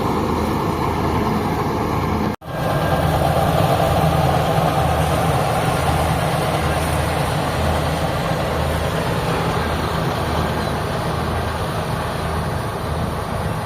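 Large diesel engine of farm machinery running steadily with a low hum, cutting out for a moment about two seconds in.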